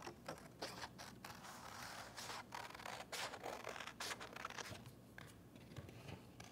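Scissors cutting through white cardstock: a series of short snips at an uneven pace.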